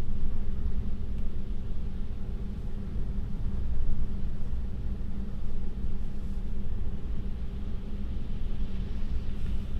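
Steady low road and tyre rumble heard inside the cabin of a moving Tesla electric car, with no engine note, and a faint higher hiss swelling near the end.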